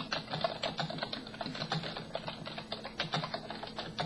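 Typing on a computer keyboard: a quick, uneven run of key clicks, several a second, as a short text comment is written.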